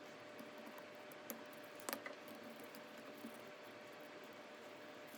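Faint room hiss with a few small, sharp clicks, the loudest about two seconds in, as a T8 Torx screwdriver backs out the small screws on a ratchet's head.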